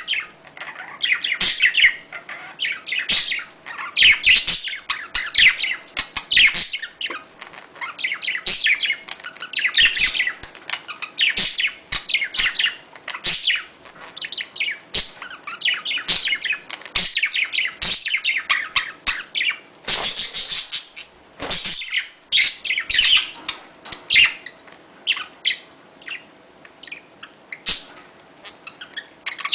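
Budgerigars chattering and warbling nonstop: rapid strings of chirps, clicks and squeaky notes, with a harsher noisy squawk about two-thirds of the way through.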